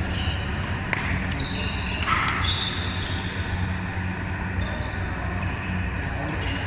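Badminton play in a large indoor hall: a few sharp racket hits on a shuttlecock and short high squeaks of court shoes on the floor, echoing over a steady low hum and faint voices.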